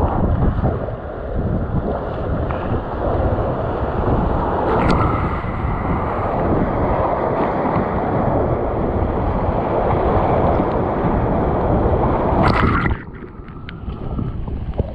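Whitewater rapids rushing loudly around a kayak, with wind buffeting the microphone and paddle strokes splashing. Near the end a sharp splash comes, and then the rush drops suddenly quieter.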